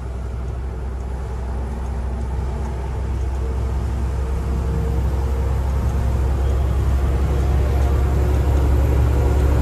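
Diesel goods truck's engine and road noise heard inside the cab while driving: a steady low drone that grows gradually louder.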